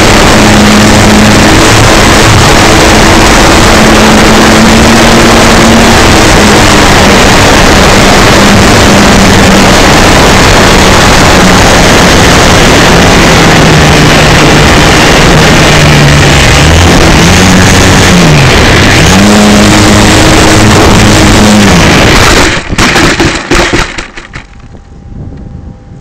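Electric RC Super Cub in flight, heard from its onboard camera: loud wind rush over the microphone, with the motor and propeller hum rising and falling in pitch with the throttle. About 22 seconds in, a run of knocks as the plane crashes onto the beach sand. Then the motor hum stops and only faint wind remains.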